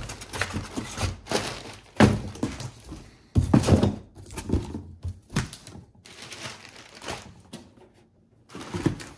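A desktop computer tower being handled and laid down: a string of knocks and thumps, the loudest about two seconds in and again about three and a half seconds in.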